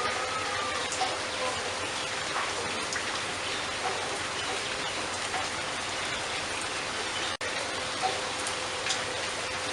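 A bird's faint short chirps, scattered through a steady rain-like hiss. The sound cuts out for an instant about seven seconds in.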